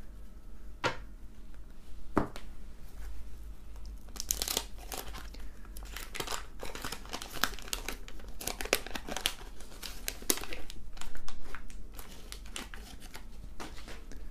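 Wax-paper wrapper of a 1991 Fleer basketball card pack being torn open and crumpled by hand: a long run of crinkling and tearing, loudest about eleven seconds in. Two sharp taps come before it, near the start.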